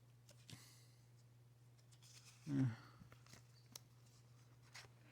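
Baseball cards being handled and flipped through: faint clicks and a soft slide of card stock over a steady low hum. About two and a half seconds in, a man gives a short, falling 'hmm'.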